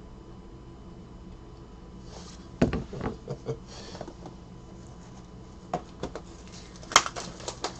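Cardboard trading-card boxes handled on a table: a sharp knock about two and a half seconds in, then scattered taps, rustles and clicks, with a louder click near the end, over a steady low hum.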